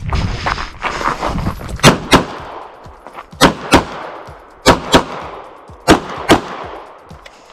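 Glock 48 9mm pistol fired in four quick pairs of shots, eight shots in all, with about a second between pairs. A rough low rumble fills the first second and a half before the first shot.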